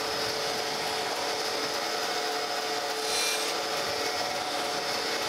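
Surface grinder's wheel grinding a straight edge: a steady hiss of the cut over the hum of the running spindle, briefly louder about three seconds in. The wheel is catching only part of the surface because the straight edge has a slight angle or taper to grind out.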